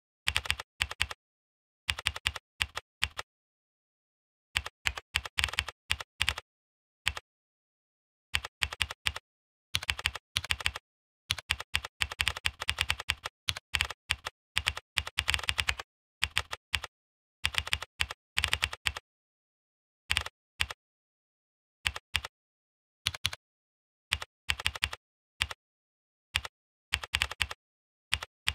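Typing on a computer keyboard: quick runs of key clicks in bursts, with dead-silent pauses between them. The longest, densest run comes about ten to sixteen seconds in.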